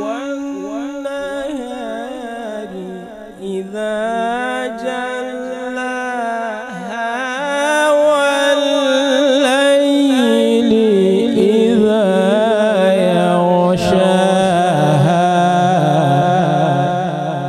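Male Quran reciter (qari) chanting in the melodic tilawat style, drawing out long, ornamented phrases whose pitch wavers and turns, growing louder about eight seconds in.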